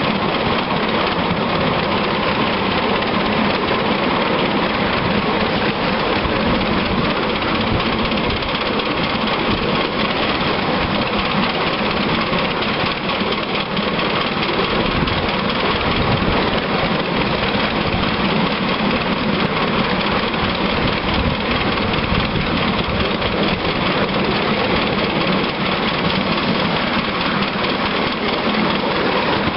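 Sweet Pea miniature steam locomotive running along the track under steam, a steady dense mix of exhaust and wheels on the rails.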